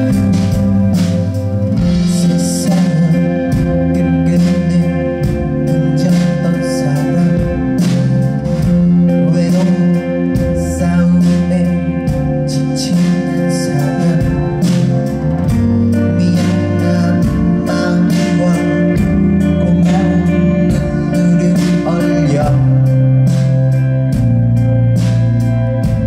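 Live band playing a mid-tempo pop-rock song: strummed acoustic guitar, electric guitar, bass guitar and a drum kit keeping a steady beat, with a man singing the lead vocal.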